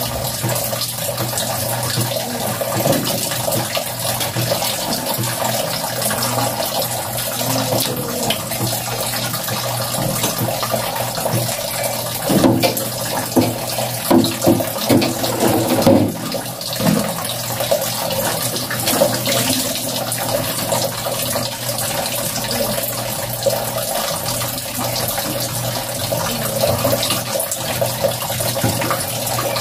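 Water running steadily from a tap, with a few knocks and clatters about halfway through.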